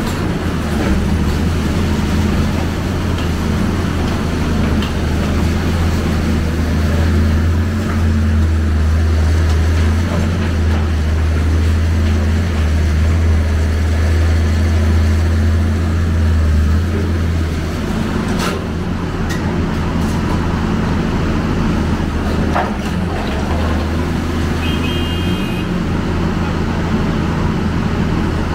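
Hyundai Robex 290LC excavator's diesel engine running under working load, a steady low drone that eases off about 17 seconds in. A few sharp knocks come soon after.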